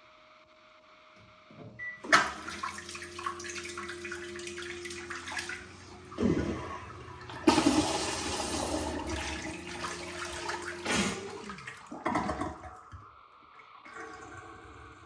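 Toilet fitted with a Moen bidet seat flushing: water rushes for about ten seconds with a steady low hum running under it, then eases off as the tank refills. The hum that comes with the flush and refill is the noise problem in question.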